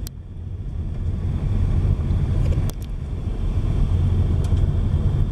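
Car driving on an unpaved dirt road, heard from inside: a steady low road-and-tyre rumble with a few sharp ticks.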